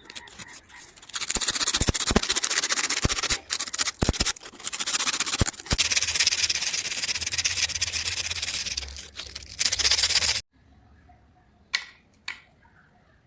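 Loud, harsh rubbing and scraping against a hard surface in long stretches with brief pauses, cutting off abruptly near the end, followed by a few light clicks.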